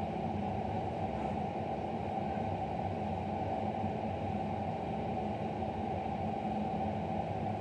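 Steady background hum and hiss with a few fixed low pitches, unchanging throughout and without any distinct knocks or footfalls.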